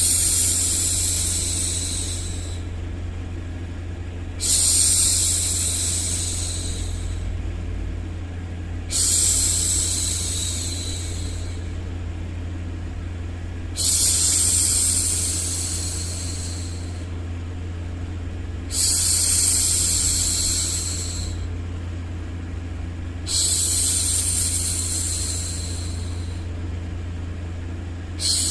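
A woman shushing a baby, a long 'shhh' about two and a half seconds long that starts sharply and tails off, repeated about every four and a half seconds. Under it runs a steady low hum.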